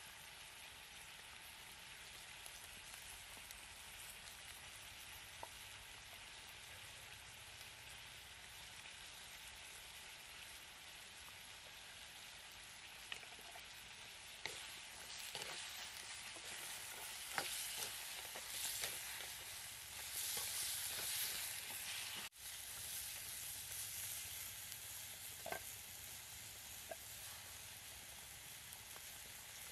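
Meat sizzling as it fries in a clay pot over a wood fire: a steady hiss that grows louder and busier for several seconds past the middle, with a few sharp clicks.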